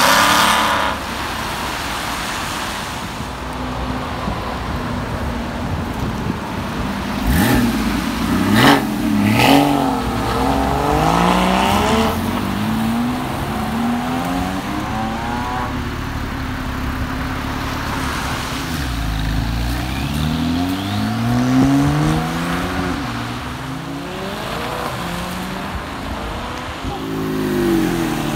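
Sports cars, among them an Aston Martin Vantage, a Porsche Boxster and a Porsche 911 Carrera, accelerating away one after another. Their engine notes rise through the gears and drop at each shift. A few sharp cracks come about eight seconds in.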